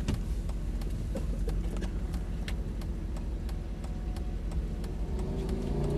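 Mercedes SL63 AMG's 6.3-litre V8 idling at a standstill, with scattered light clicks and knocks from inside the cabin.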